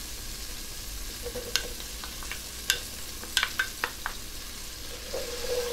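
Minced garlic sizzling in hot melted butter in a pot, a steady hiss. A wooden spoon scraping the garlic out of a small glass bowl gives a few sharp clicks and taps in the middle.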